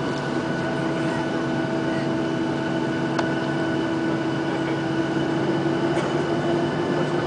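Boeing 737-800's CFM56-7B engines at taxi power, heard inside the cabin: a steady hum with several held tones over the cabin air noise, no spool-up yet.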